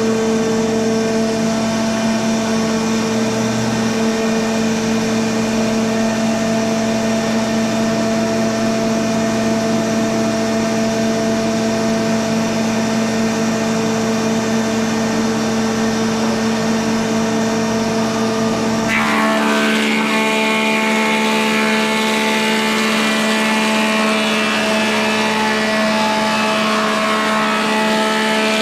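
Thickness planer running with a steady motor and cutterhead hum; about two-thirds of the way in, the sound turns rougher and noisier as a wooden board is fed through and planed.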